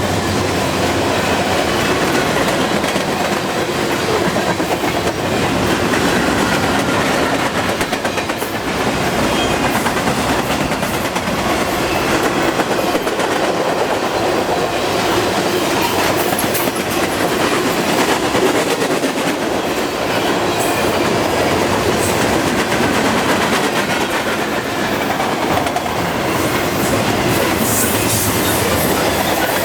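CN freight train rolling past at about 45 mph: a steady rumble with the clatter of steel wheels on the rails.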